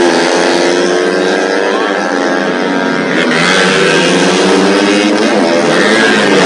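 Several racing motorcycle engines running hard at high revs, their pitch rising and falling as the bikes race past.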